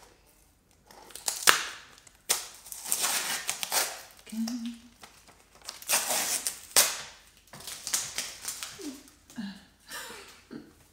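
A small cardboard parcel box being torn open by hand, its tear strip ripped off: several sharp rips and scrapes of cardboard in the first seven seconds, then softer handling of the box.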